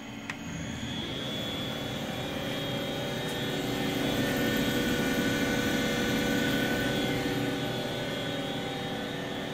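A keypress click on the CNC control, then the Fadal 914 vertical machining center's spindle spins up about a second in and runs with a steady whir made of several tones. It is loudest in the middle and eases a little near the end.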